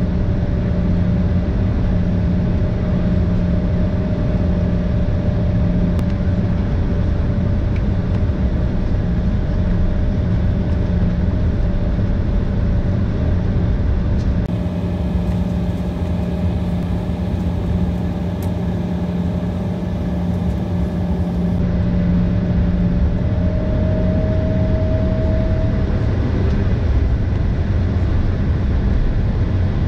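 Steady cabin hum of a parked Embraer ERJ-170 airliner, heard from inside the cabin: a continuous rumble carrying a low tone and a higher steady whine. The higher whine rises slightly for a few seconds about three-quarters of the way in.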